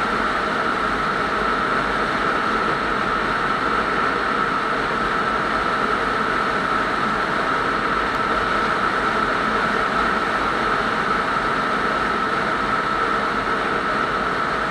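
Steady drone of a vehicle cruising at highway speed: an even rush of tyre, wind and engine noise with a constant high-pitched hum running through it.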